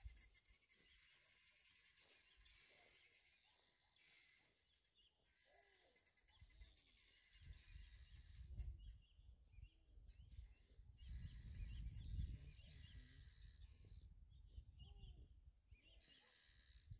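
Faint bush ambience: birds chirping and a high insect-like chirring that comes and goes. A low rumble swells through the middle.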